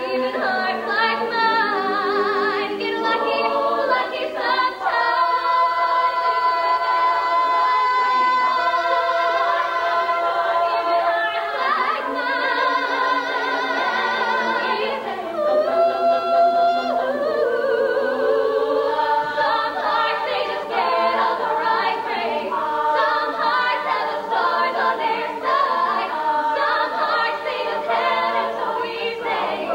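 All-female a cappella group singing in harmony, many voices holding chords that shift from note to note.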